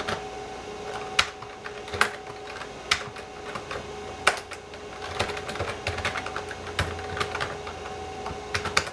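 Keystrokes on a computer keyboard, typed slowly and unevenly, with a few louder presses. A steady two-note hum sits underneath.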